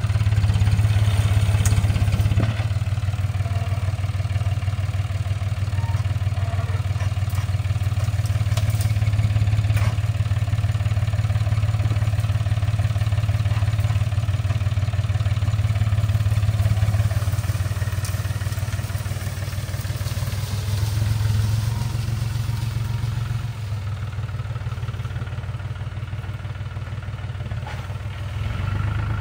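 John Deere 5300 tractor's diesel engine running steadily while it works a front-loader grapple through bushes. It grows somewhat quieter over the last several seconds.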